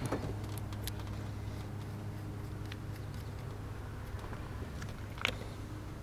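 A few faint clicks and taps as an incandescent test light's alligator clip is handled and clipped on by hand, the sharpest about five seconds in, over a steady low hum.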